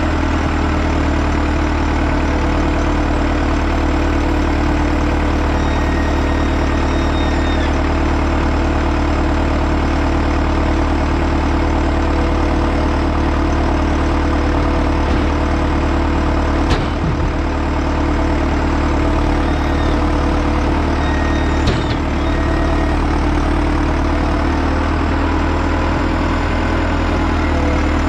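Heavy diesel engine running steadily at a constant speed, with two sharp knocks, one about two-thirds of the way through and another about five seconds later.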